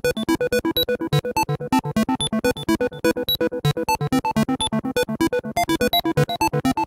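A single electronic oscillator in an ESP8266-driven sound sculpture plays a fast arpeggio of short, bright notes, about eight a second, with pitches shifting from note to note. A delay echoes each note. The notes come from a generative sequencer tuned in just intonation.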